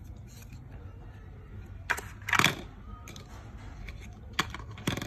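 Sharp clicks and knocks of hard plastic from handling a wireless-earbud charging case and its packaging on a table: a click about two seconds in, a louder, longer clatter just after it, and two more clicks near the end.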